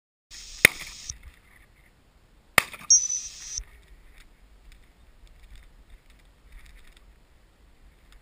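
Two shotgun shots about two seconds apart, each a single sharp bang, with a hiss of wind or grass on the microphone around them.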